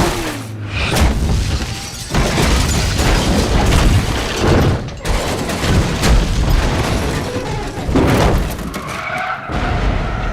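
Film soundtrack of a highway car crash: skidding tyres and a series of heavy crash impacts with breaking glass, over music.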